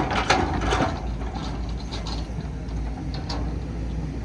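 Excavator at work: a few sharp metallic clanks and rattles, loudest in the first second and fainter later, over a steady low engine rumble.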